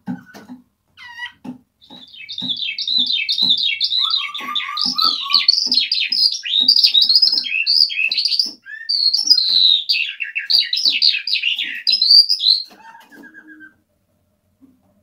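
Eurasian skylark singing a long, rapid warbling song of tumbling chirps and trills, starting about two seconds in and breaking off briefly halfway through before running on until near the end.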